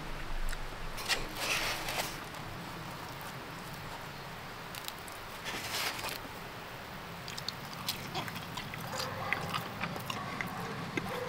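Close-up sounds of biting into and chewing pizza, with crunchy bursts about a second in and again near six seconds, then a run of small chewing clicks.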